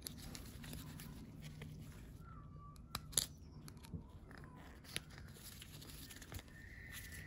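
A handful of faint clicks and light scrapes from small hand tools working old O-rings off a hydraulic valve block, over a low steady hum.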